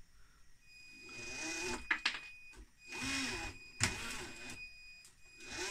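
Electric drive motor and gears of a radio-controlled dump truck running in two short bursts with a high whine, broken by sharp clicks as the drivetrain jumps and locks up: the differential has broken gear teeth.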